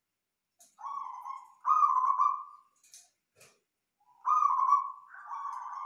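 Zebra dove (perkutut) cooing: three cooing phrases with a pause before the third, then near the end a run of quick repeated notes.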